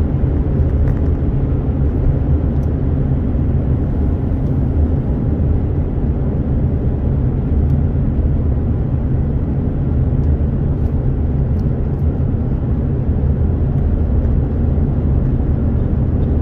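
Steady low rumble of engine and tyre noise inside a vehicle's cabin while it drives at road speed.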